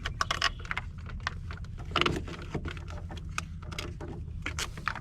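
Scattered light clicks and metal knocks of battery cable clamps being handled and taken off a battery, over a steady low hum.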